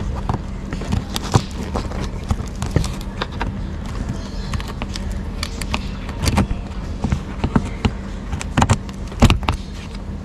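Ratchet wrench with a socket undoing bumper screws under a car's wheel arch: irregular metal clicks and knocks, a few louder ones in the second half, over a steady low hum.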